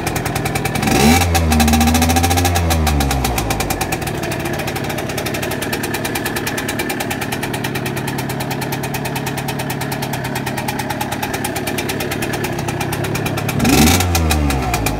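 Liquid-cooled two-stroke engine of a Yamaha Aerox scooter with a DR70 kit, running with its spark plug sitting loose in stripped threads, so compression is low. About a second in the throttle is opened and the revs rise, bogging at first, hold for a couple of seconds and drop back to a steady idle. A second short blip of the throttle comes near the end.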